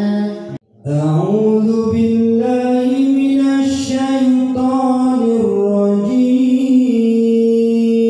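A man reciting the Quran in murottal style in maqam Bayati. After a brief breath about half a second in, he holds one long melodic phrase of sustained notes that slide between pitches.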